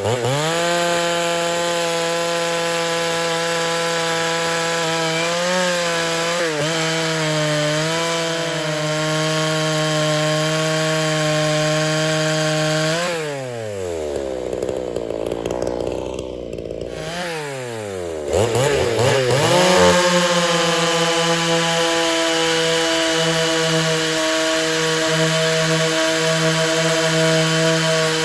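Poulan Countervibe 3400 two-stroke chainsaw at full throttle, cutting through wood with a hand-ground chain; the engine note holds steady under load. About halfway through it drops back to idle for a few seconds, then revs up again and cuts on.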